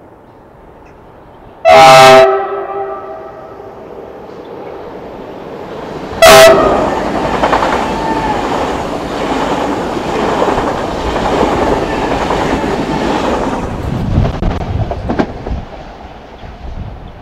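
PKP Intercity ED250 Pendolino high-speed electric train sounding its horn twice, a half-second blast about two seconds in and a shorter one about four seconds later. It then rushes past at speed with wheel and air noise that fades away over about seven seconds.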